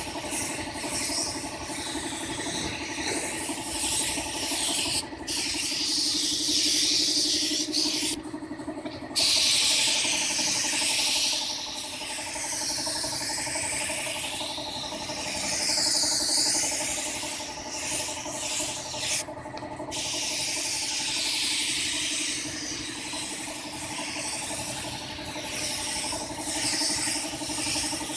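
Gravity-feed air spray gun hissing as it sprays epoxy primer, the hiss stopping briefly a few times as the trigger is let go, with a steady hum underneath. The gun is putting out paint weakly and slowly, which the painter puts down to it needing cleaning.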